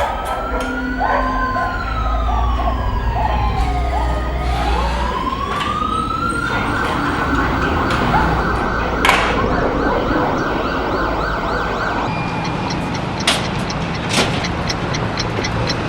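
Siren wailing, its pitch sweeping slowly up and down, over dense city street traffic noise. A few sharp bangs stand out in the second half.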